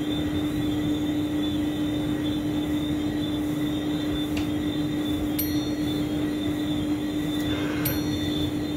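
Steady droning hum from a running machine, a constant low tone over an even background noise, with a few faint clicks.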